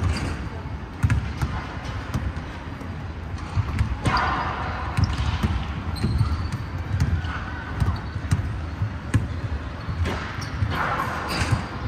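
Basketballs bouncing on a hardwood gym floor: irregular dull thuds at varying distances, echoing in the large hall.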